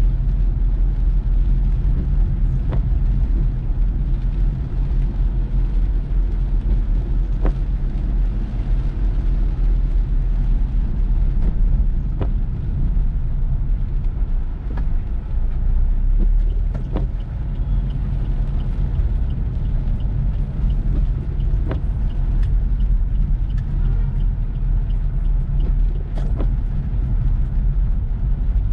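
Car driving on a rain-soaked road: a steady low rumble of engine and tyres, with scattered sharp taps.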